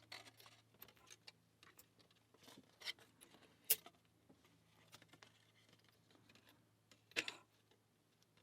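Faint, irregular clicks and taps of a small metal lock and tools being handled, the sharpest about three, four and seven seconds in, over a faint low hum.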